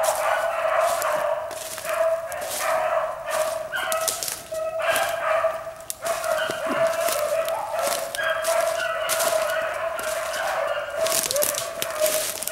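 Pack of rabbit hounds baying continuously on a running rabbit's trail, several voices overlapping. Close, sharp crackles of brush and twigs are heard throughout.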